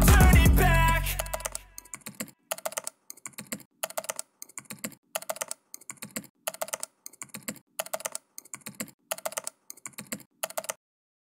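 Computer keyboard typing, in short bursts of clicks about two a second, as a typewriter-style sound effect for text being written out; background music fades out in the first second and a half.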